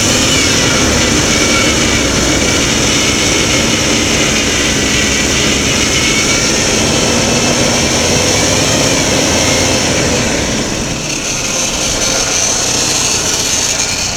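2003 Chevrolet S10's 2.2-litre four-cylinder engine idling steadily, heard up close under the open hood, a little quieter in the last few seconds. It carries a muffled noise, which the owner takes for a slight exhaust leak.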